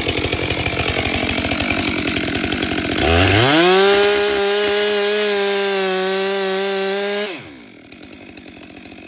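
Two-stroke chainsaw idling, then opened up to full throttle about three seconds in and held high for about four seconds as it cuts into a felled log, then dropped back to idle.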